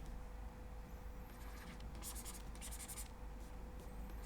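Digital pen stylus scratching across a graphics tablet surface in several short strokes, as the sculpting brush is dragged. A faint steady electrical hum runs underneath.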